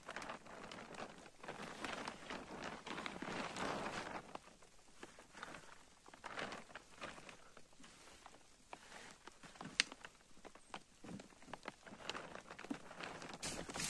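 Dry tree fern fronds rustling and crackling as they are handled beside a plastic tarp shelter, in irregular bursts that are heaviest in the first few seconds, with one sharp click near the ten-second mark.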